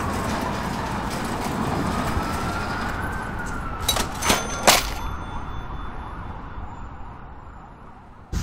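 Police siren on a slow wail, its pitch rising and falling over a steady rushing noise, with a few sharp clicks about four seconds in; the sound fades away toward the end.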